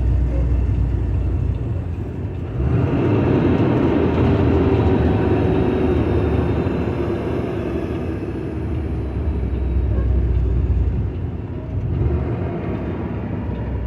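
Kenworth truck's diesel engine running with a steady low rumble while driving. About two and a half seconds in a louder, broad rushing road noise joins it, easing off near the end.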